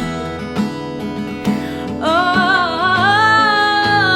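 Acoustic guitar playing an instrumental break in a folk-pop song. About halfway through, a long held melodic note with gentle bends comes in over it.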